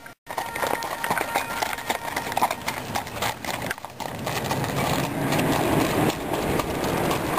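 Horses' hooves clip-clopping on road and gravel as single-horse driving carriages and a ridden horse move along.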